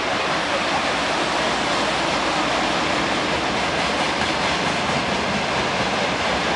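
A long freight train of tank wagons passing: a steady rushing rail noise with no clear wheel rhythm.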